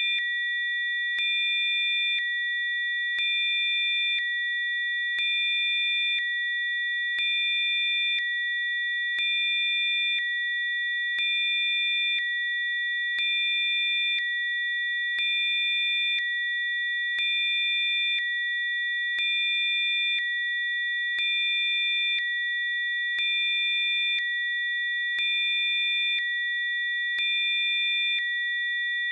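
Electronically generated Rife-frequency sine tones: several steady, high-pitched pure tones held together. The loudness steps up and down about every two seconds, with a faint click at each change.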